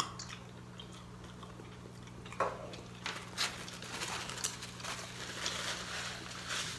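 Paper napkin crinkling and rustling in short bursts from about two and a half seconds in, as hands are wiped and the mouth dabbed, over a steady low hum.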